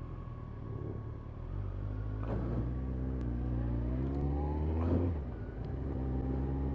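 Kawasaki ZZR1400's inline-four engine pulling away after a slow full-lock turn. The revs rise for about two seconds, drop sharply at a gear change about five seconds in, then run steadily.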